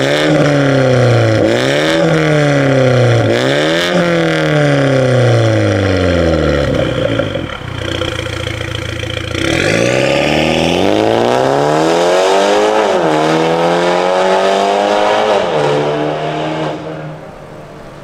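BMW X4 30i's B48 2.0-litre turbocharged four-cylinder through a Fi Exhaust valvetronic catback with catless downpipes. It is revved several times in quick succession and falls back to idle. Then the car pulls away, engine note climbing through two upshifts and fading as it drives off.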